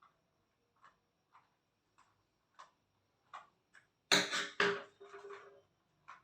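A screwdriver working a tight small screw out of a plastic mosquito racket casing: light clicks about every half second, then a louder clatter and scrape of handling about four seconds in.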